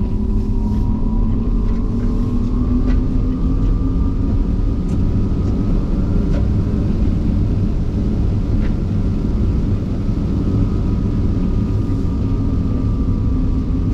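Hummer EV driving slowly over an off-road course, heard from the cab: a steady low rumble of tyres and suspension, with a faint electric-motor whine that rises and falls slowly and a few light ticks.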